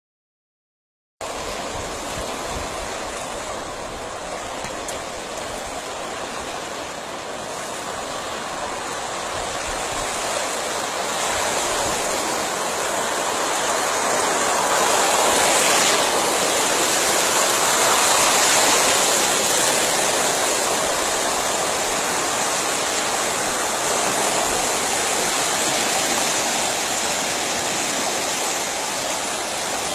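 Steady rush of water, swelling in the middle and easing again.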